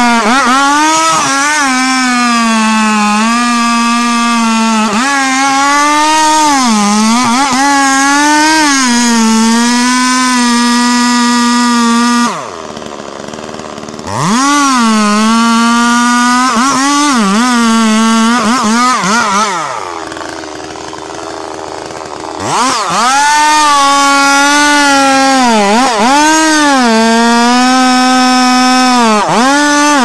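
Large chainsaw at full throttle cutting into a big tree trunk, its high engine note repeatedly sagging and recovering under load. Twice, about twelve seconds in and again about twenty seconds in, it drops back to a quieter idle for two or three seconds before revving up into the cut again.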